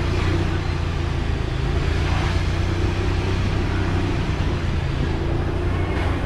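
Motorbike engine running steadily at low speed, a continuous low hum with road and wind noise.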